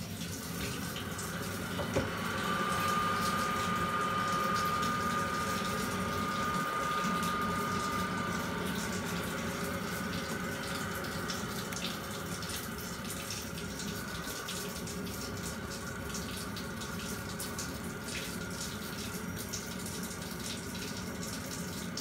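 Water running steadily through a Worcester Greenstar combi boiler's pipework with the mains on and a hot tap open, as the newly fitted flow adaptor is tested for leaks. A steady whistling tone sounds over the rushing from about two seconds in and fades out near the middle.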